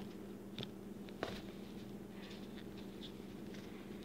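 Pen writing on paper: soft scratching strokes with a couple of light clicks in the first second or so, over a steady low hum.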